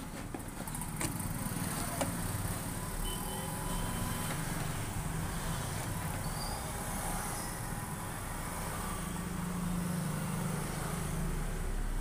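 Steady low background rumble with a couple of faint clicks about one and two seconds in.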